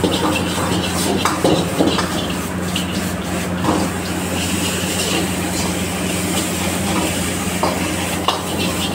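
Pad thai noodles stir-fried in a wok over a gas burner: a metal ladle scrapes and knocks against the wok again and again while the food sizzles, over a steady low hum.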